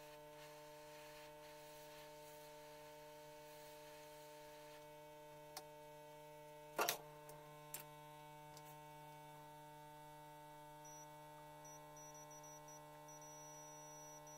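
Near silence with a faint steady electrical hum, broken by a few brief clicks, the loudest about seven seconds in.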